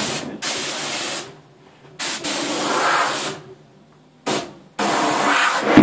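Pressurised gas hissing in three separate bursts of about a second each, at a car tyre being seated on its rim on a tyre changer.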